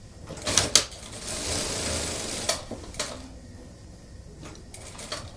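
Industrial lockstitch sewing machine setting in a suit sleeve. A few sharp clicks, then the machine runs in one short burst of about a second and a half, then more scattered clicks as the cloth is repositioned under the presser foot.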